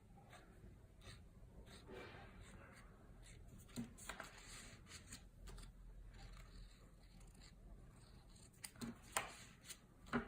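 Faint rustling and handling of paper and card stock, with a few short sharp clicks, the loudest about nine seconds in.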